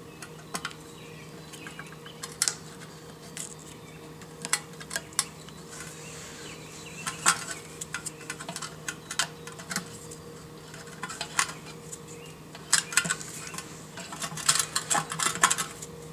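Hands picking and scraping an old gasket off the carburetor mounting face of a Briggs & Stratton Classic lawnmower fuel tank: scattered light clicks and scratches, coming thicker near the end.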